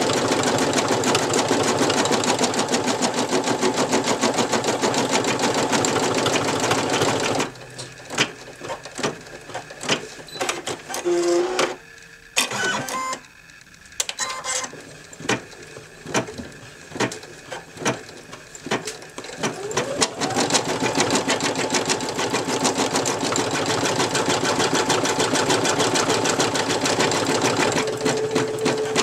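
Brother NV2600 computerized embroidery machine stitching rapidly, then stopping about seven seconds in. A stretch of separate clicks and knocks follows while the machine is handled, and about twenty seconds in it starts stitching again, its pitch rising as it comes up to speed.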